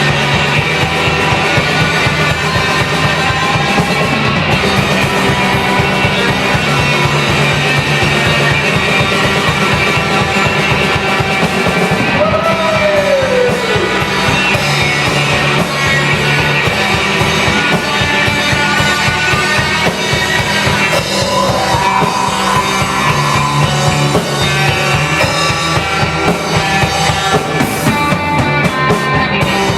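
Loud rock band music with a drum kit, playing without a break; a falling pitch glide comes about halfway through.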